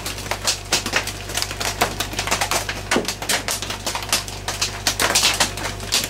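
Heavy rain drumming on a tin shed roof: a dense, irregular popping that runs without a break, with a steady low hum underneath.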